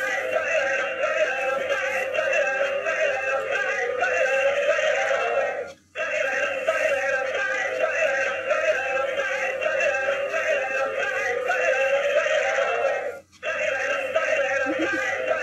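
Dancing cactus toy's small built-in speaker playing a synthetic-voiced singing song, thin and without bass. The same short stretch of song plays twice, each time cutting off briefly before starting over.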